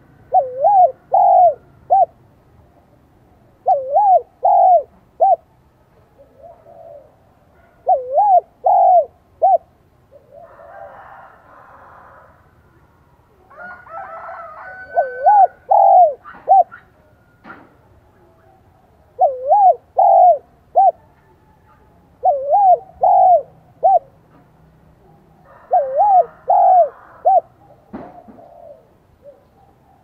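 Caged spotted dove cooing in its high 'giọng son' voice, the call of a decoy bird kept to lure wild doves: seven phrases of a few arching coo notes, the middle note loudest, repeated about every three to four seconds. A little rustling and a couple of faint clicks fall between the phrases.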